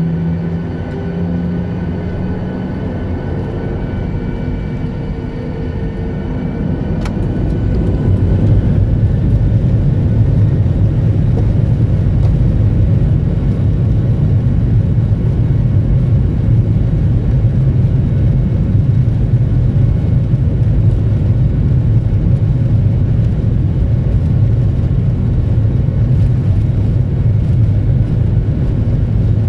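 Jet airliner's engines during takeoff: steady engine tones at first, then a brief click about seven seconds in, after which the noise rises into a steady, heavy low rumble that holds.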